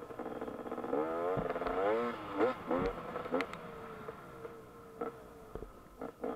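KTM 250 EXC two-stroke dirt bike engine revving, its pitch rising and falling several times in quick succession for a couple of seconds, then settling to a steadier note that slowly drops. Several sharp knocks and rattles from the bike run through it.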